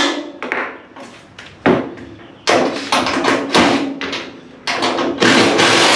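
A string of sharp knocks and clatters at uneven intervals as tools and bolts are worked against the steel cowl of a 1929 Ford Model A pickup, with a longer, louder stretch of noise near the end.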